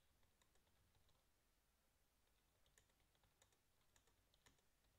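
Faint typing on a computer keyboard: irregular, scattered key clicks.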